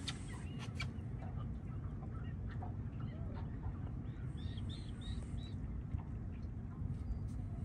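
Steady low rumble of wind on an open boat deck, with a few faint clicks near the start and a short run of four high chirping bird calls about halfway through.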